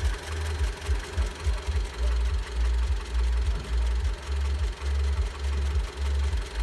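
Mitsubishi 4B10 1.8-litre inline-four engine running with a knock from inside, which is the fault being shown. A strong, uneven low rumble sits under it.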